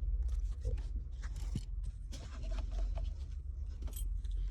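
Scattered faint clicks and scrapes of hands working at car wiring and plastic wiring-harness connectors under a dashboard, over a steady low rumble.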